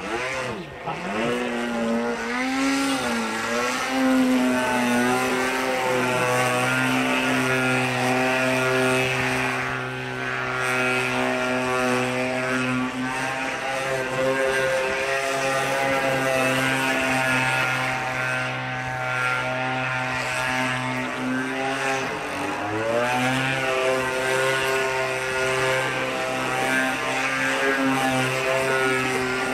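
Gasoline engine and propeller of a radio-controlled aerobatic model airplane flying overhead, a steady high-throttle drone. The engine note wavers up and down over the first few seconds and dips then climbs again about two-thirds of the way through as the plane maneuvers.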